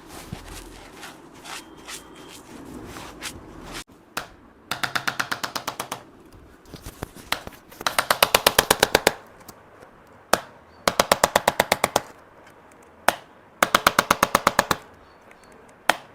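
Handheld percussive chiropractic adjusting instrument working on the lower spine. It fires four short bursts of rapid clicks, about a dozen a second and each about a second long, with a single sharp click ahead of some bursts. The first few seconds are quieter, with only scattered clicks.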